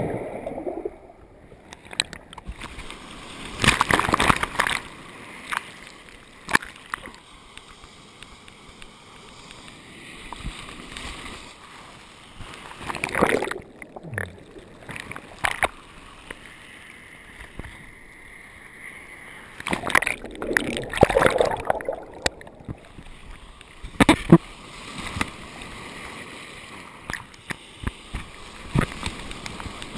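Sea water sloshing and gurgling around a waterproof action camera on a surfboard as it goes under and comes back up, with loud splashes a handful of times. Near the end the splashing comes from hands paddling the board.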